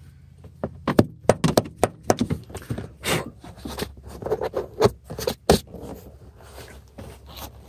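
Irregular sharp metal clicks, clinks and knocks as car seat belt hardware and a hand tool are handled and knocked against the floor and seat rail, strongest from about a second in until shortly after the middle.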